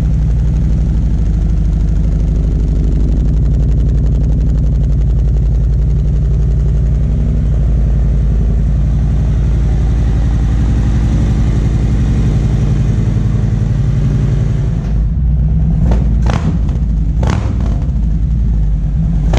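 Harley-Davidson Milwaukee-Eight 114 V-twin idling steadily through a freshly installed Jackpot 2-into-1 Road and Track exhaust, on its first run after the install and tune. A few sharp clicks or knocks sound near the end.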